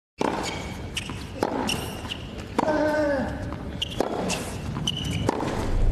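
Tennis rally sounds on a hard court: several sharp racket-on-ball hits and short high shoe squeaks. About two and a half seconds in, one hit comes with a short vocal grunt that drops in pitch.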